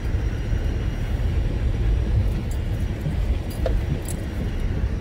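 Car cabin noise while driving slowly over a rough gravel road: a steady low rumble from the tyres and car, with a few sharp clicks and knocks, about halfway through and again a second or so later.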